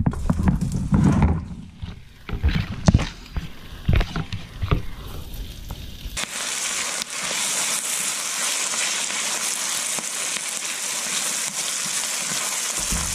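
Chopped onion and garlic going into a wok with knocks and clatters of a utensil against the pan, then, about six seconds in, a steady sizzle as the onions fry in hot corn oil.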